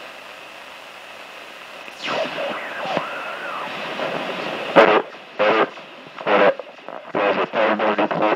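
A hi-fi stereo's long-wave AM radio hisses with static. About two seconds in, a homemade NE555 AM transmitter is switched on and the speaker breaks into whistling, gliding and warbling tones. From about five seconds a man's voice comes through the radio in choppy, thin-sounding stretches.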